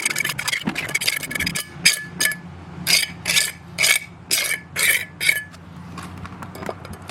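A hand tool scraping and pushing wet concrete into a form, with a run of six quick strokes, about two a second, in the middle, each with a slight metallic ring.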